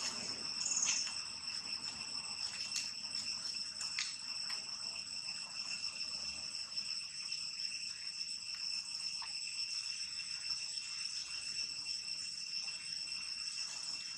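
Steady, high-pitched chorus of insects buzzing without a break, with a few faint clicks scattered through it.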